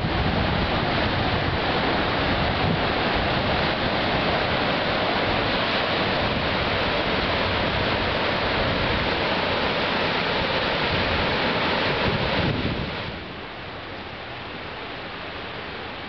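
Sea surf washing against the foot of a rocky cliff, mixed with wind buffeting the microphone. Just under thirteen seconds in it drops suddenly to a much fainter, steady hiss.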